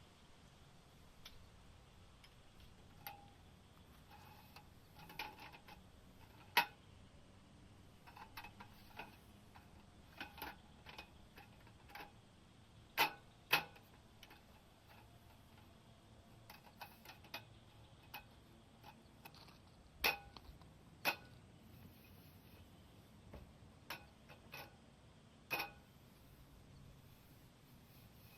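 Scattered sharp ticks and taps at irregular intervals, some louder than others, over a faint steady hiss.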